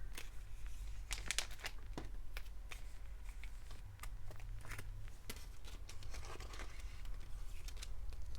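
Photocards and plastic sleeves being handled: irregular crinkling rustles and light clicks, over a low steady hum.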